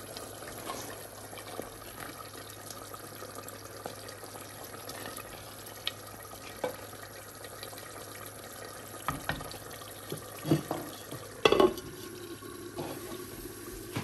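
Serving spoon scraping and clinking against a cooking pot and plate as keema aloo curry is ladled out. Scattered small clicks give way to a few louder knocks about nine to twelve seconds in, over a steady low hum.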